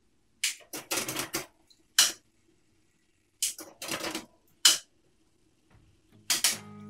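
Bicycle drivetrain clicking and clattering in several short bursts as the pedal crank is turned by hand, the chain running over the chainring. Guitar music comes in near the end.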